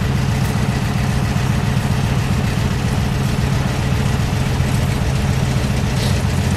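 A vehicle engine idling steadily, a low even note that holds at one speed.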